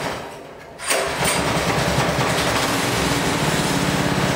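Small 6.5-horsepower pull-start engine being pull-started with the choke on. It catches about a second in and keeps running, settling into a steady, even beat.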